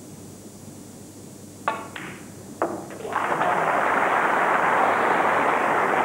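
Snooker balls clack sharply, about three times in quick succession. Then audience applause breaks out about three seconds in and carries on steadily.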